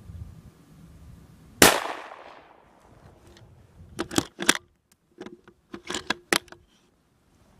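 A single .223 Remington shot from a Bars 4-1 bolt-action rifle about a second and a half in, its report trailing off in a short echo. A few seconds later come two bunches of sharp clicks and knocks.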